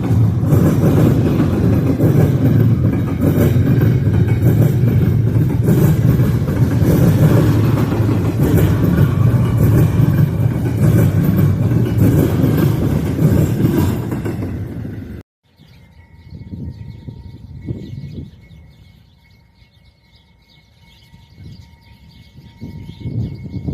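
Freight train rolling past close by: a loud, steady rumble of wheels on rail mixed with wind buffeting the microphone. About fifteen seconds in it cuts off abruptly to a much quieter stretch of wind gusts with a faint steady high whine.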